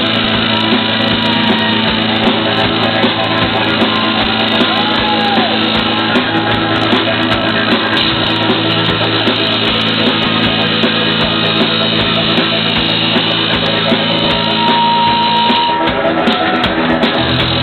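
A live garage-rock band playing loud: electric guitar, bass guitar and drum kit.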